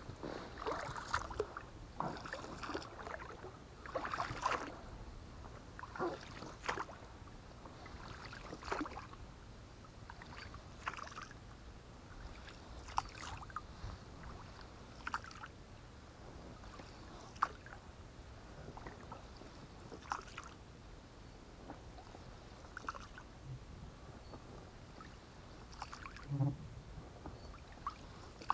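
Oars of an inflatable boat being rowed: the blades dip, splash and drip, with a stroke about every two seconds and small knocks in between.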